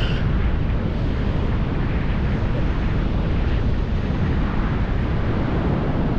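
Wind buffeting the microphone, a steady low rumble, over the wash of ocean surf.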